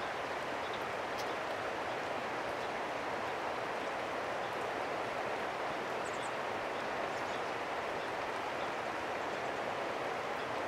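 Steady, even rushing noise that does not change, with a few faint high chirps about six seconds in.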